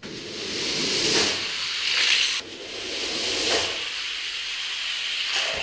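Die-cast 1/64 scale cars rolling fast down an orange plastic Hot Wheels track: a loud, hissing rattle of small wheels on plastic track that swells and drops several times as the cars pass.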